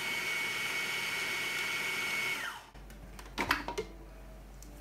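Braun food processor motor running with a steady whine while blending green chillies into paste. About two and a half seconds in it is switched off and the whine falls away as it spins down. A few clicks follow as the lid is taken off.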